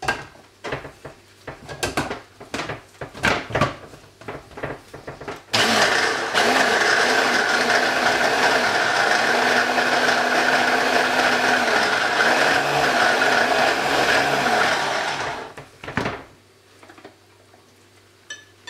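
Stick blender with a chopper attachment running for about ten seconds, blending parsley, garlic and lemon in olive oil into a sauce, its hum wavering in pitch as it works through the load. Before it, a run of clicks and knocks as the motor unit is fitted onto the chopper bowl, and a few more knocks after it stops.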